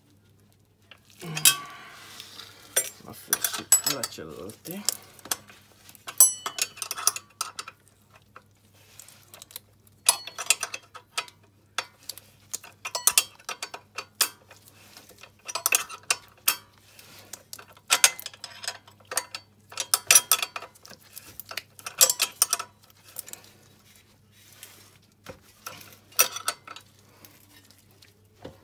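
Steel wrenches clinking and scraping on ATV suspension bolts and nuts as they are turned and tightened, in irregular bursts of metallic clicks and clanks.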